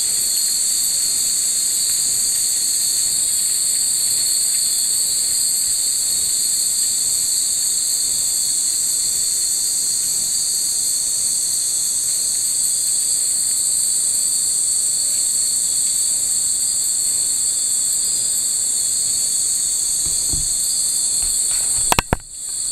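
A dense, steady, high-pitched chorus of insects singing on a summer night, unbroken throughout. A couple of sharp knocks sound near the end.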